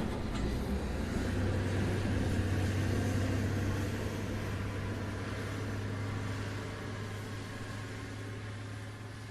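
Quarry dump truck's engine running with a steady low hum, slowly fading away.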